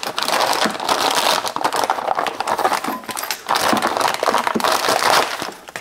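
Clear plastic packaging bag crinkling and rustling as it is opened by hand and the brass catcher's wire frame and mesh bag are worked out of it, with a short lull about midway.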